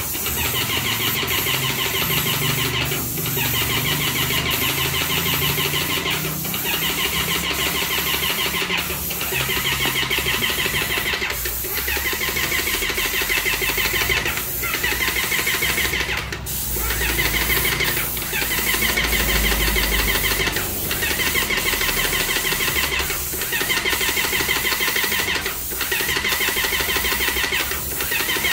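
E-Power X9 airless paint sprayer running while the gun sprays: its motor-driven pump makes a steady, fast mechanical chatter. The sound dips briefly about every two and a half seconds.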